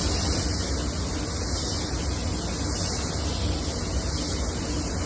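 Paint spray gun hissing steadily with compressed air while spraying clear coat.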